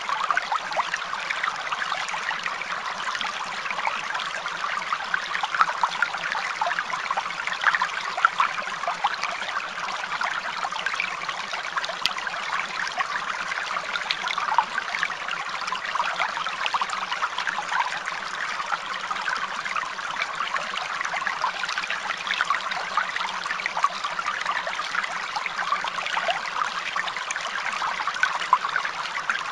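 Steady running water, like a small stream trickling over stones, with many small splashes and no break.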